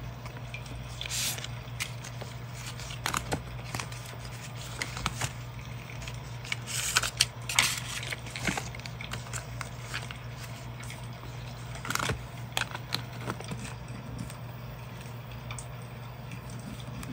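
Hands handling scrapbooking papers and a sticker sheet: paper rustling and crinkling, with soft scrapes and light taps. The loudest rustles come about seven seconds in and again about twelve seconds in, over a steady low hum.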